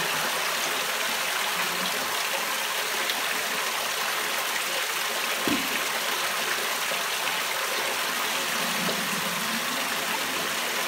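Water running steadily through a home-built roll fleece filter, a constant rush and splash of flow into the fleece bed. A single short knock about five and a half seconds in.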